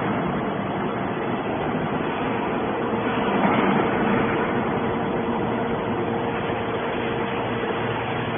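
Horizontal metal scrap baler line running: a steady machine hum over dense mechanical noise, with no distinct strikes.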